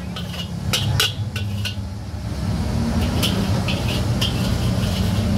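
Metal spatula clinking against a steel wok as the last fried rice is knocked out onto a plate, a few sharp clinks in the first second and a half, then lighter clinks around three to four seconds in. A steady low hum runs underneath.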